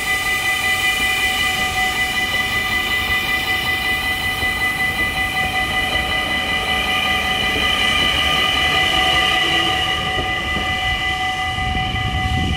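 Level-crossing warning bell ringing continuously in rapid strokes while an NS electric passenger train rolls past with rail noise and then pulls away.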